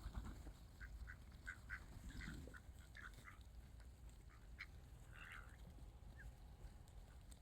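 Ducks quacking faintly: a quick run of short calls in the first three seconds, a few more a little after the middle.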